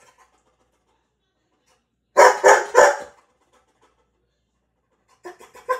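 Dog barking: three loud barks in quick succession about two seconds in, then a few quieter, shorter barks near the end.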